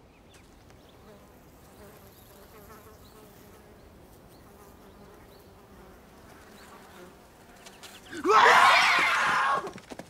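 Faint buzzing of flies, then about eight seconds in a loud scream that lasts just over a second.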